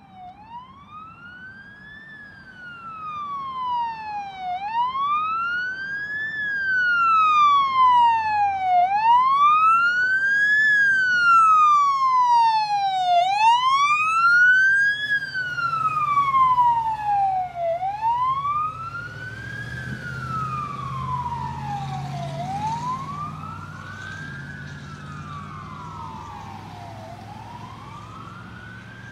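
Fire engine's siren on a slow wail, rising and falling about once every four seconds. It grows louder as the engine approaches, is loudest as it goes by with its engine audible, then fades as it drives away. In the second half a second, offset wail overlaps the first.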